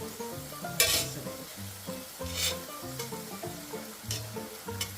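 Ground-chicken patties and potato chips sizzling as they fry in oil, under background music with held notes and a light beat.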